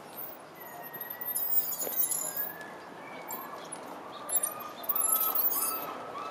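Light clinking and jingling in two short spells, with a bird chirping over and over from about halfway in.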